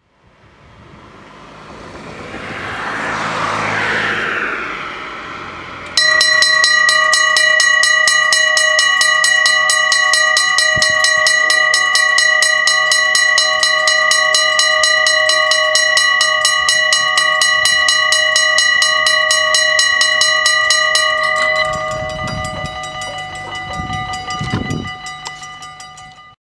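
SSI mechanical level-crossing bell with a point-style gong, struck in a fast, even run of several strokes a second, each ringing on with a clear bell tone. The bell starts suddenly after a rushing noise has swelled and faded. Near the end it drops in level over a low rumble.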